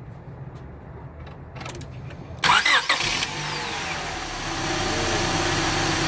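Car engine started with the key: a short burst of starter cranking about two and a half seconds in, then it catches and settles into a steady idle. A faulty spark plug wire that caused a misfire has just been replaced.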